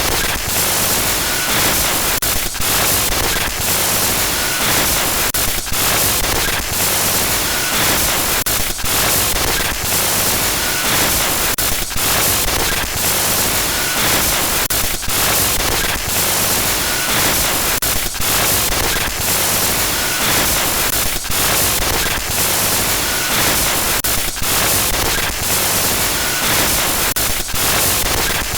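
Glitch noise effect: a loud, harsh hiss of static across all pitches, broken by brief dropouts every second or two.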